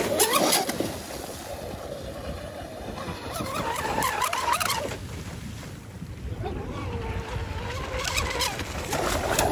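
Traxxas M41 catamaran RC boat's brushless electric motor whining as it speeds over the water, the pitch rising and falling with the throttle, loudest at the start and near the end. Wind noise on the microphone runs underneath.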